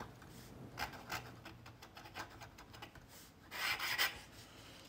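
Fountain pen nib scratching across paper in a series of short strokes as a word is written, with a longer, louder stroke near the end as the underline flourish is drawn.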